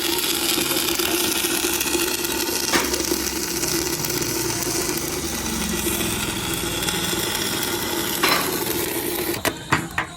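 Electric arc welding on a homemade automatic welding rig: a steady crackling hiss of the arc over a constant hum. It stops about nine and a half seconds in, followed by a few sharp clicks.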